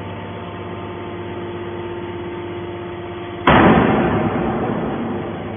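Hydraulic scrap metal baler running with a steady hum, then about three and a half seconds in a sudden loud crash from the scrap in the machine that dies away over a second or two.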